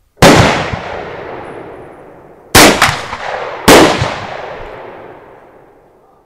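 Rifle shots at a covered firing line. A .45-70 single-shot rifle fires about a quarter second in, followed by two more equally loud gunshots from other rifles about two and three and a half seconds in, with a smaller crack just after the second. Each shot has a long echoing tail.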